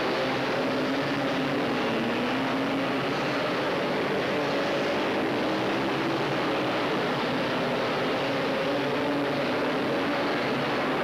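Engines of several racing three-wheeler ATVs running together, their pitch rising and falling as the riders rev through the corners.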